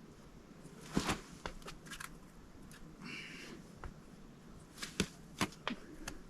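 Scattered scuffs and taps of climbing shoes and hands on boulder rock during a climbing attempt: a few sharp clicks and a short scrape about three seconds in.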